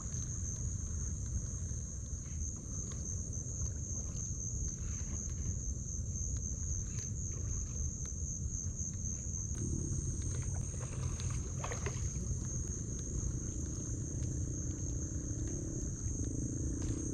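Steady, high-pitched drone of an insect chorus over a low background rumble. A low hum joins about ten seconds in.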